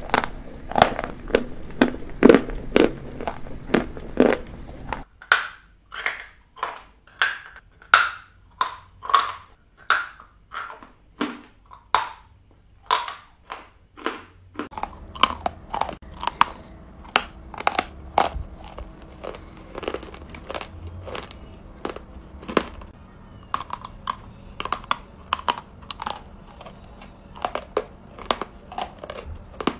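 Close-miked crunching and chewing of edible chalk: one sharp, brittle bite after another, about two a second. The background changes abruptly twice as different eaters follow one another.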